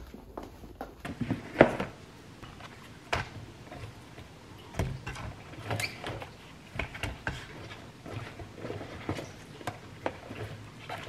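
Green onion stalks being handled: lifted out of a plastic storage box and set down on a wooden cutting board, giving irregular knocks, taps and rustles. In the first second, a couple of shoe heel clicks on a tiled floor.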